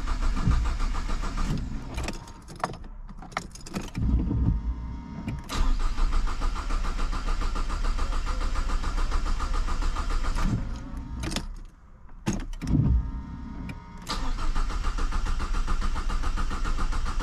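Renault 1.5 dCi four-cylinder diesel engine cranking on its starter in several long bursts with short pauses, turning over without catching. The fuel system still holds air after the fuel pipes and pump were disconnected and needs priming with the hand bulb.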